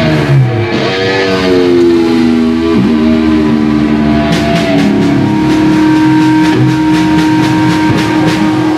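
Rock band jamming, led by electric guitar playing long held notes that bend in pitch. A steady run of sharp beats joins about halfway through.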